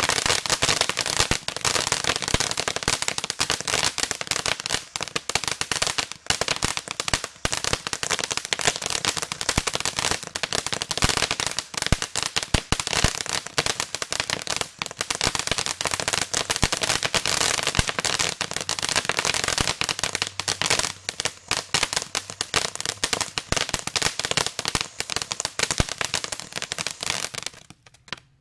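Consumer fireworks crackling and popping in a dense, continuous rattle of small sharp bangs, which cuts off suddenly near the end.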